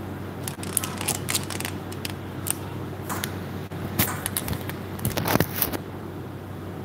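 Handling noise from a camera being moved and repositioned: a string of irregular clicks, taps and rustles, with the sharpest knocks about four seconds and five and a half seconds in, over a steady low hum.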